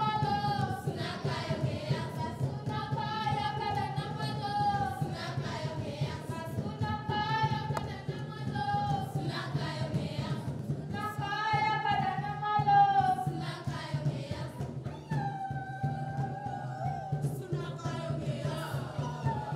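A group of girls singing a song together in melodic phrases of a few seconds each.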